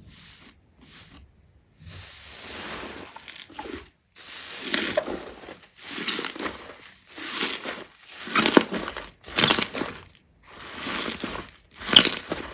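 Slime being squeezed and pressed by hand, a crackly squishing sound in repeated presses about one a second, louder from about four seconds in.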